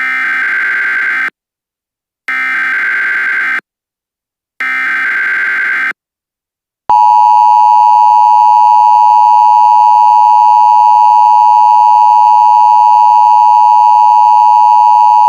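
Emergency Alert System signal: three short buzzy bursts of SAME header data with silent gaps between them, then, about seven seconds in, the louder steady two-tone EAS attention signal, which holds.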